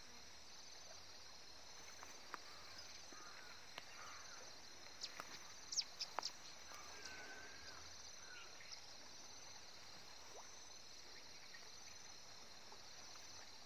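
Faint, steady outdoor insect chorus, a high pulsing chirr, with a few short bird chirps and sharp clicks about halfway through.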